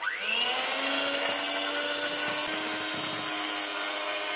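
Electric hand mixer switched on, its motor whine rising as it spins up, then running steadily as the beaters whip flour into cake batter in a plastic bowl.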